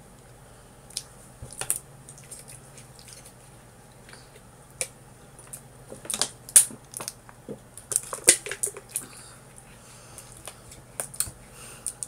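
Scattered small clicks and crunches of a person eating cheese crackers, with a plastic water bottle handled and drunk from around the middle, where the clicks come thickest.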